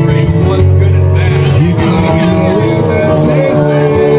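Live music: an acoustic guitar played with a man singing into a microphone.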